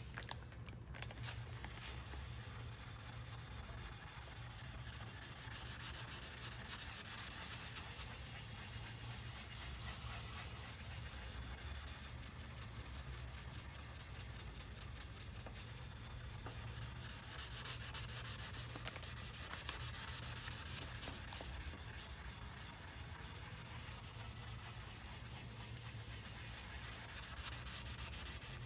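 Wet sanding with 600-grit paper on the cured epoxy and clear coat of a carbon-fibre rowing rigger: a continuous rasping scrub of rapid back-and-forth strokes.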